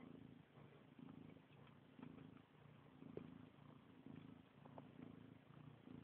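Domestic cat purring quietly and close up while nursing puppies; the low purr swells and eases about once a second with her breathing. A few faint clicks are heard, the sharpest about three seconds in.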